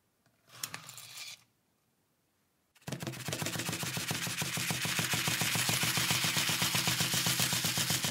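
Small metal screws, nuts and vintage Meccano parts tipped out of a bowl into a plastic colander, with a short soft rattle about half a second in. From about three seconds in the colander is shaken hard and steadily, the metal parts rattling fast against the plastic as the powder sifts out.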